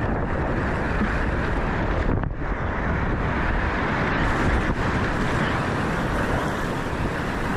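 Whitewater rapids rushing and churning around a small kayak, heard as a steady, full noise mixed with wind buffeting the action-camera microphone. The sound is briefly dulled about two seconds in.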